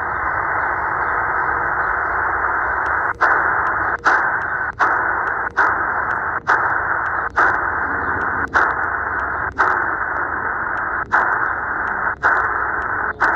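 Sihuadon D-808 shortwave receiver in upper-sideband mode giving out a steady band hiss through its speaker, muffled by its narrow voice filter, with no station heard. From about three seconds in, the hiss drops out with a short click roughly once a second as the radio is stepped up the 20-metre amateur band in 5 kHz steps.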